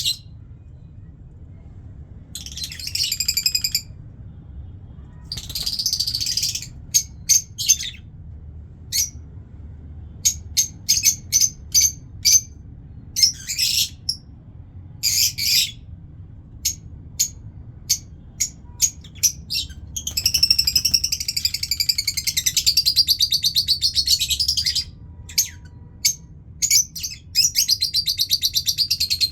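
Lovebirds chirping: short sharp high chirps in quick runs, broken by a few longer chattering bouts and one long rapid chatter lasting several seconds. A steady low hum runs underneath.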